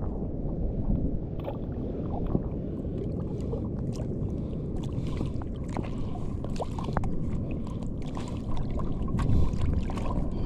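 Sea water sloshing and lapping around a fisherman's inner-tube float: a steady low rush of moving water with scattered small splashes.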